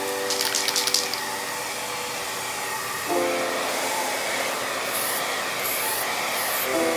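Aerosol gloss spray hissing in several short bursts from about five seconds in, over background music with held chords. Near the start there is a brief quick rubbing.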